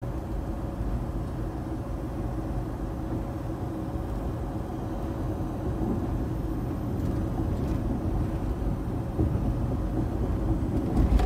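Steady low rumble of a vehicle's running engine heard inside the cab, with a faint steady hum above it and a short louder bump near the end.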